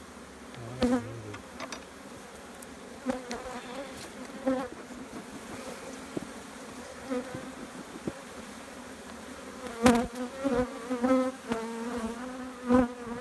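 Honeybees buzzing around an opened hive, their buzz swelling and fading as bees fly close past the microphone. A few sharp knocks sound through it, the loudest about ten seconds in.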